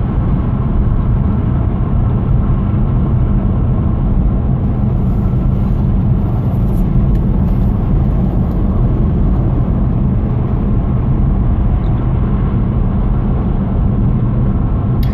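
Steady road and engine rumble of a car cruising at motorway speed, heard inside the cabin: a constant low drone of tyres and engine with no changes.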